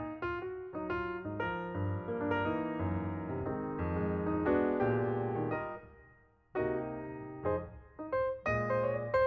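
Background piano music: a gentle melody of struck notes, pausing briefly about six seconds in.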